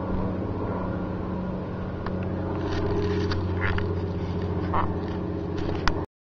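A distant engine drones steadily at one low pitch, with a few scuffs and taps over it in the second half. The sound cuts off abruptly about six seconds in.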